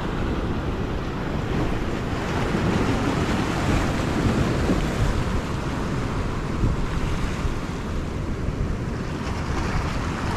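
Sea waves washing in, with wind buffeting the microphone in a steady low rumble.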